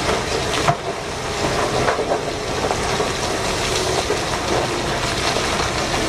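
Loose rock and earth pouring off the raised bed of a giant mining dump truck as it tips its load: a steady rushing rumble with a couple of sharp clacks in the first two seconds.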